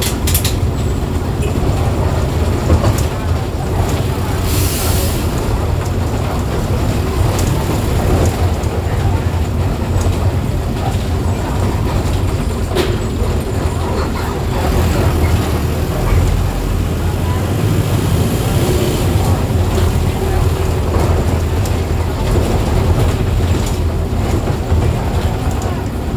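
Mercedes-Benz OF 1418 bus's four-cylinder diesel engine running steadily under way, with rattles and clicks and a brief hiss about five seconds in.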